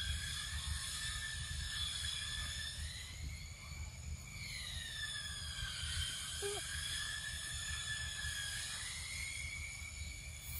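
Insects droning: a steady high-pitched tone that slowly rises and falls in pitch, over a low rumble.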